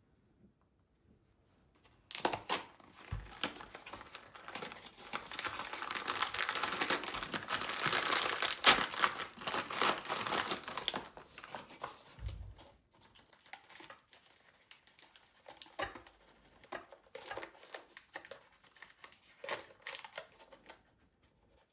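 Crinkly wrapping material being handled and crumpled. It starts about two seconds in, is densest in the middle, then thins to occasional light crinkles and clicks.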